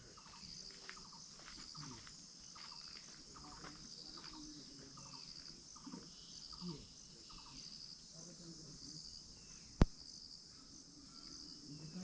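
Insects chirping in a steady rhythm, about two high pulses a second. One sharp click stands out near the end.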